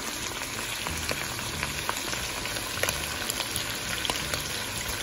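Diced beef and sliced white onion frying in an enamel pot: a steady sizzle with scattered small pops as the meat and onion brown.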